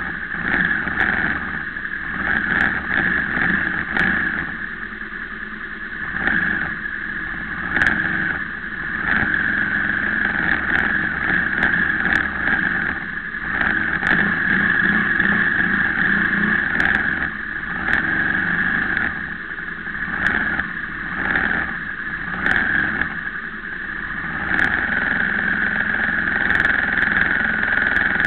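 Vehicle engines idling in stopped street traffic, with a motorcycle's engine close by. A steady whine runs through it, and the engine rumble swells and dips every few seconds.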